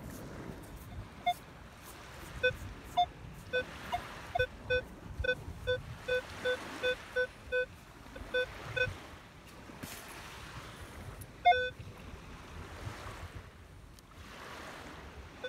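Minelab Equinox 800 metal detector giving a run of short, mid-pitched target beeps, about two or three a second with a few higher beeps mixed in, as its coil passes back and forth over a buried metal target in beach sand. After a pause, one louder beep about three-quarters through. A steady background hiss underneath.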